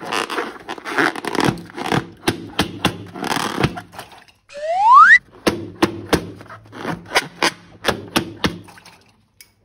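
A quick run of thunks and knocks with scraping between them, and one rising squeal-like glide about halfway through. It all stops shortly before the end.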